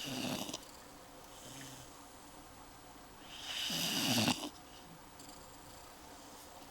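A sleeping dog snoring: the end of one snore at the start, a faint breath, then a loud rasping snore about halfway through that builds and stops abruptly, each snore about four seconds apart.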